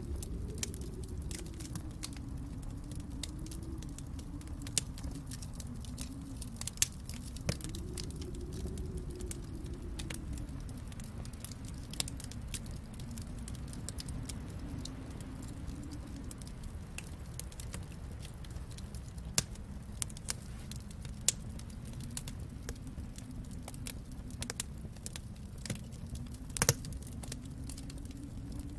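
Wood fire in a fireplace crackling, with scattered sharp pops over a low steady rumble; the loudest pop comes near the end.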